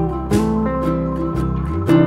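Background music played on a plucked acoustic guitar, a string of picked notes ringing over one another.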